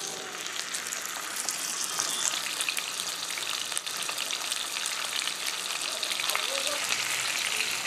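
A large rohu (rui) fish head shallow-frying in hot oil in a non-stick kadai: a steady sizzle with fine crackles and spits throughout. This is the first side frying.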